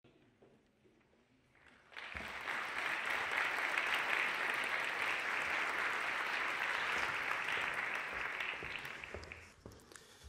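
Audience applauding in a hall: the clapping starts about two seconds in, holds steady, and dies away near the end.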